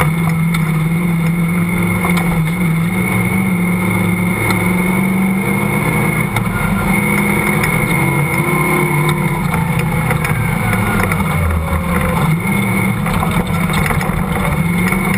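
Off-road vehicle's engine running hard across sand dunes, its pitch rising and falling with the throttle, with a steady high whine alongside.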